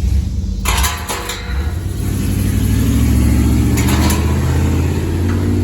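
A motor vehicle's engine running and then accelerating, its pitch rising steadily from about two seconds in until near the end.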